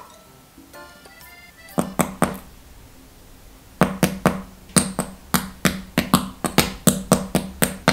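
A wooden spoon tapping on the crisp, toasted marshmallow crust of a s'more dip: two taps about two seconds in, then a run of taps from about four seconds in that quickens toward the end.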